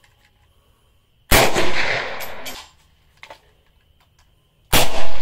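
Two suppressed shots from a Romarm Cugir Mini Draco 7.62×39 AK pistol, about three and a half seconds apart. Each is a sharp report that trails off over about a second.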